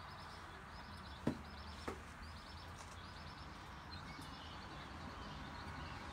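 A bird chirping faintly: a string of short, high, trilled chirps repeating about every half second, with two soft knocks a little after the first and second seconds.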